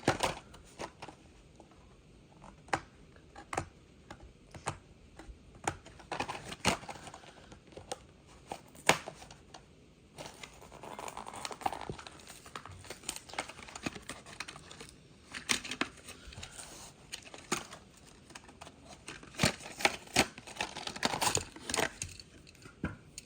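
Hot Wheels blister pack being opened by hand: scattered sharp clicks and crinkling of the plastic blister and tearing of the card backing, with a longer rustle about halfway through.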